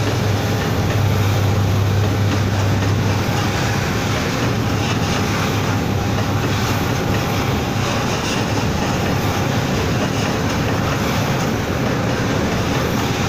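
Freight train of tank wagons rolling past at close range: a steady rumble of wheels on rails, with a low hum that is strongest in the first three seconds and then weakens.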